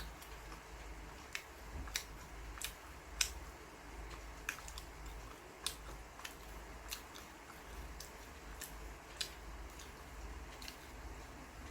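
Faint eating sounds: irregular short, sharp clicks about once a second over a low steady hum.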